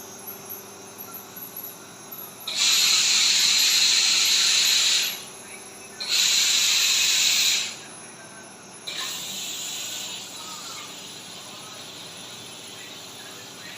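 Compressed air blowing off in two loud hissing bursts, the first about two and a half seconds long and the second about one and a half, followed by a weaker, shorter hiss.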